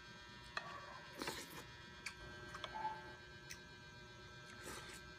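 Quiet eating at a table: spoons and forks click against a plate and a glass bowl a few times, with a couple of short mouth noises of eating. A faint steady electrical hum runs underneath.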